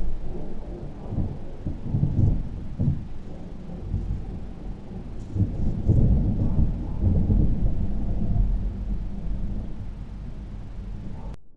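Thunder rolling and rumbling in several uneven swells during a violent thunderstorm. The loudest swells come right at the start and about halfway through, and the sound cuts off suddenly near the end.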